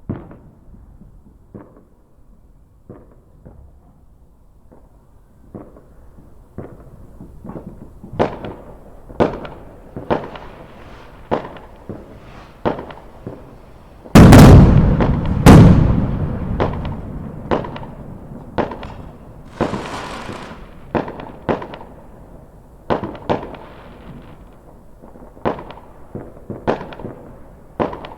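Fireworks going off: sharp bangs about once a second at first, coming faster and louder, then two very loud booms about halfway through that rumble away slowly, followed by more bangs and a brief high hiss.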